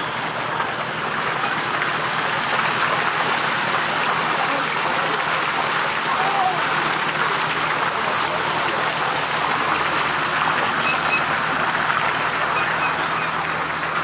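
Waterfall pouring into a lake, a steady rush of falling water.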